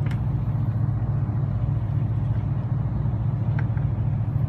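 A fishing boat's engine idling: a steady low rumble with no change in pitch.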